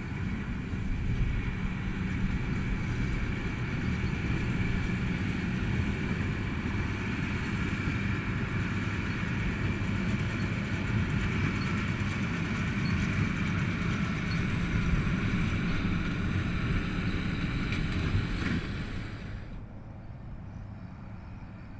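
Tractor diesel engine running steadily while pulling a baler, with a constant high machinery whine over the hum. About 19 seconds in the sound drops to a quieter, duller hum.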